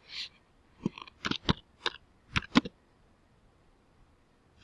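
Computer keyboard keys clicking as a word is typed: about seven separate keystrokes in the first two and a half seconds, then a pause.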